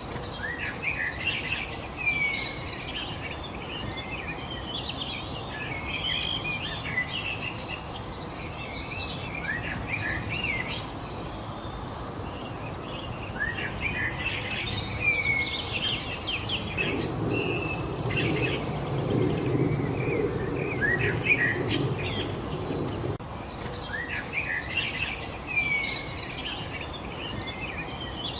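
Several songbirds chirping and singing in overlapping bursts of quick, high, sweeping notes, over a steady background hiss of outdoor noise. A low rumble sits under the birds for several seconds in the middle.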